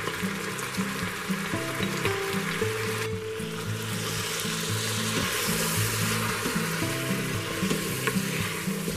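Chicken pieces, chopped tomatoes and peppers sizzling in the hot inner pot of an Instant Pot on sauté while being stirred with a spoon. The sizzle grows brighter about three seconds in. Background music with stepped bass notes plays underneath.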